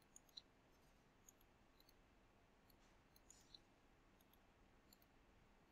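Near silence with a few faint computer mouse clicks spaced irregularly.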